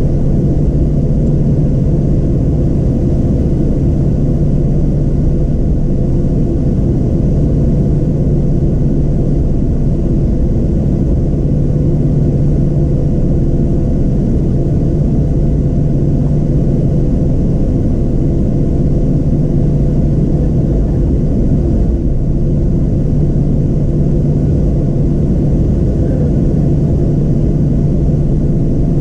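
Cabin noise of a Boeing 737-700 airliner taxiing, heard from a window seat beside the wing: its CFM56-7B turbofan engines running at taxi power, a steady low rumble with a steady hum through it.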